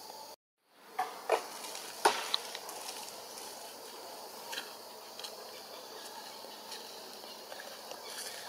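Forest ambience with a steady high insect drone. After a brief gap in the sound, a few sharp knocks and crackles come about one to two and a half seconds in, followed by faint scattered ticks.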